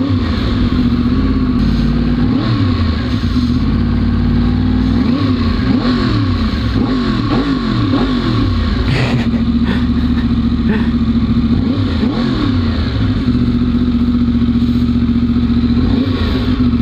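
2011 Yamaha R1's crossplane inline-four with a K-Factory titanium race exhaust, ridden at low speed. The revs rise and fall again and again through the middle, then the engine settles back to a steady note near the end.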